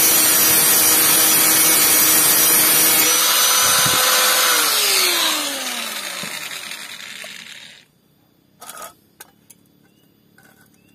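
Angle grinder with an abrasive disc grinding the surface of a galvanised square steel tube, a steady loud grinding whine. About four and a half seconds in it is switched off and the motor winds down, falling in pitch and fading over a few seconds, followed by a light knock or two.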